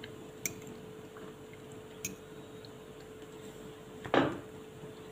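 Metal fork clicking lightly against a ceramic plate twice, over a faint steady hum. About four seconds in comes one short, louder squeak that falls in pitch.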